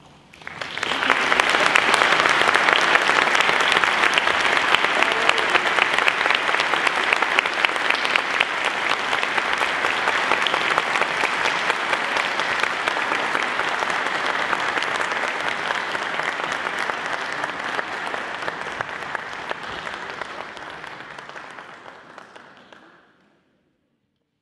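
Audience applauding, strongest in the first few seconds, slowly dying away, then cut off abruptly near the end.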